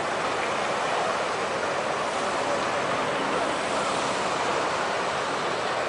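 Steady rushing noise of tsunami floodwater pouring through the town.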